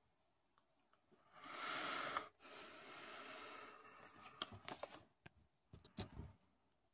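A person's breathy exhale about a second in, then a softer rush of breath, followed by a few faint clicks and knocks.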